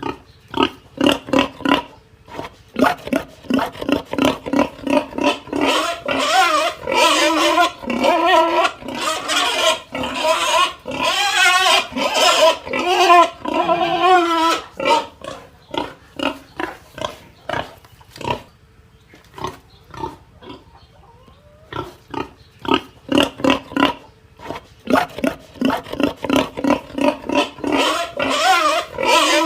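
Pig squealing and grunting in rapid short calls. The calls thin out for a few seconds past the middle, then come thick and fast again near the end.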